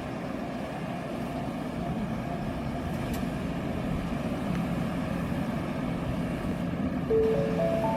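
Steady low rumble of an electric train at a station platform. Near the end, an electronic chime of rising notes begins: the tone that opens a train-approach announcement.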